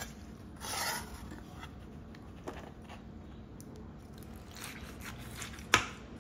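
Metal slotted spatula scraping along the bottom of a cast-iron skillet while scooping up baked macaroni and cheese: a short scrape about a second in, more scraping later on, and a sharp clink near the end.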